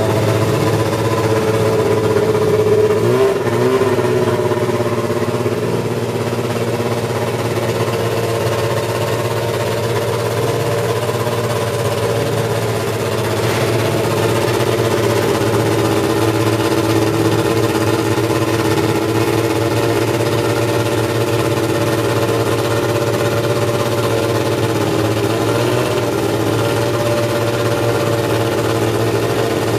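Brabham BMW BT52's 1.5-litre turbocharged BMW M12/13 four-cylinder Formula One engine running at a steady idle, with a brief rise and fall in revs about three seconds in.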